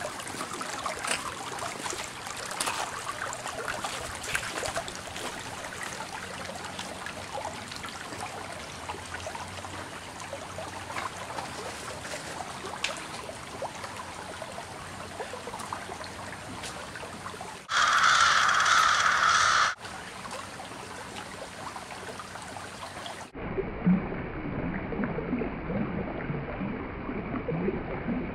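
Shallow creek water trickling and splashing over rocks. About two-thirds of the way through, a loud harsh sound lasts about two seconds. A few seconds later the water sound cuts off abruptly and gives way to a duller, muffled background.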